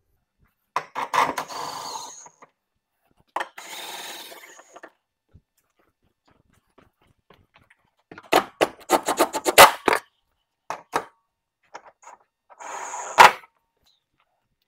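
Cordless impact wrench running in about five short bursts, hammering as it snugs the cab mount bolts, with a few single clicks and clanks in between.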